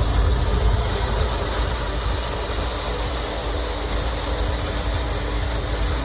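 Pet grooming blow dryer running, a steady rush of blown air with a low hum beneath it.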